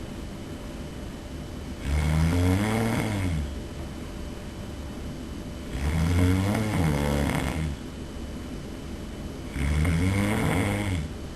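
A sleeping man snoring loudly: three snores about four seconds apart, each a rough, pitched rumble lasting about a second and a half to two seconds.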